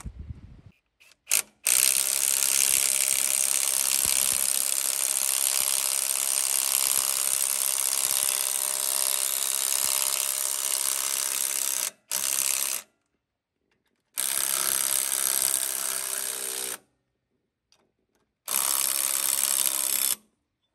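Power wrench running out the bolts of a forklift wheel hub: one long steady run of about ten seconds, then three shorter runs of under one to about three seconds, with silent gaps between. The hub is being taken apart to reach a seized brake's wheel cylinder.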